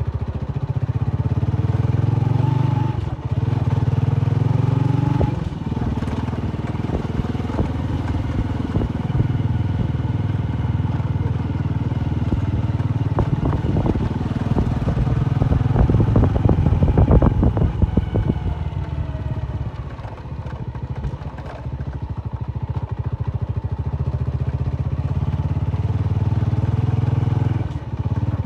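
Honda motorcycle engine running under way on a dirt track, its revs rising and falling a few times with short dips. In the middle there is a stretch of rattling clatter.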